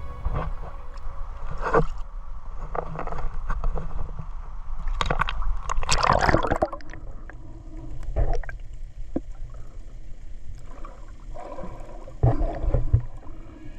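Sea water splashing and gurgling close to the microphone in irregular bursts, the biggest about six seconds in and another near the end, over a steady low rumble.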